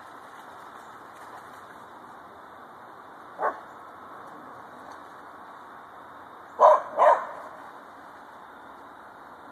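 A hound barks three times: one short bark about three and a half seconds in, then two louder barks in quick succession about seven seconds in.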